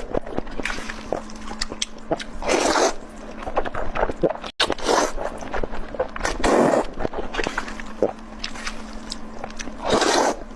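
Close-miked eating: bites, chewing and wet mouth clicks, with several louder crunchy bites. The sound cuts out for an instant about halfway through.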